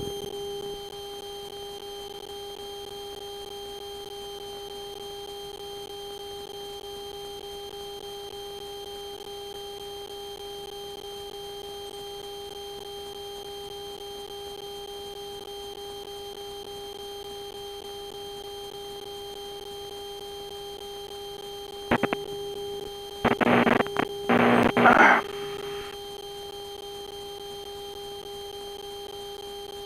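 Piper Lance's engine and propeller drone in climb, heard through the cockpit intercom as a steady hum of a few fixed tones. About three-quarters of the way through, a few loud, short bursts of noise cut in.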